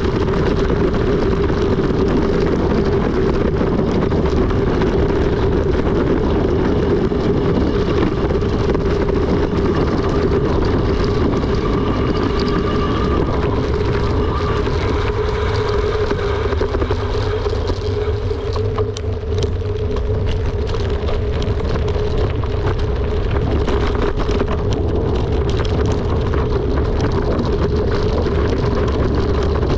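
Steady rush of wind on the microphone mixed with the rolling tyre noise of a mountain bike descending at speed. The low rumble eases for a few seconds a little past the middle, with scattered clicks from the bike over the surface.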